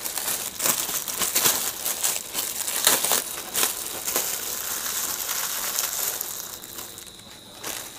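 Plastic bag crinkling and rustling as hands work mushroom spawn into sawdust substrate, in irregular crackles that die down near the end.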